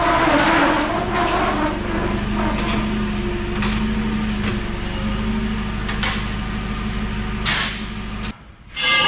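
A vehicle engine runs steadily, probably a truck, while heavy metal pieces knock and bang sharply about five times. About eight seconds in the engine sound cuts off suddenly, and a ringing metal clang follows at the end.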